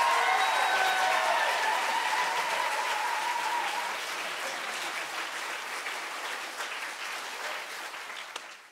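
Theatre audience applauding, with a voice calling out over the clapping in the first few seconds. The clapping slowly dies away near the end.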